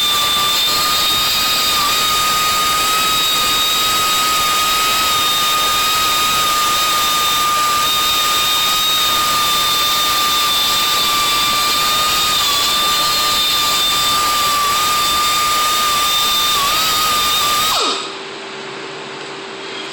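Handheld electric power tool running at a steady high speed with a high-pitched whine over a hiss. Near the end it is switched off and its pitch falls as it spins down.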